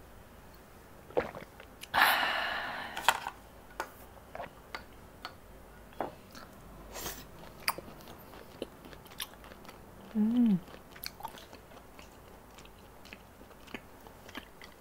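Close-up eating sounds: chewing and mouth noises with scattered clicks of chopsticks and shells against the bowl. About two seconds in there is a loud breathy exhale after a shot of soju, and about ten seconds in a short hummed "mm" that falls in pitch.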